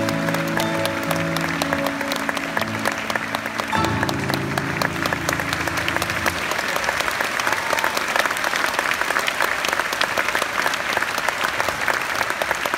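Concert audience applauding over the song's closing held chords, which change once about four seconds in and stop after about six and a half seconds; the applause then carries on alone.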